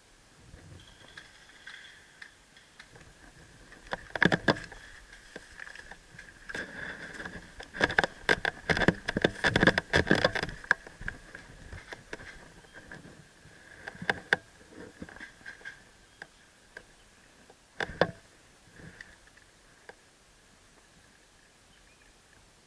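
Irregular clicking and crackling, densest for a few seconds about eight seconds in, with isolated clicks before and after, over a faint steady high hum.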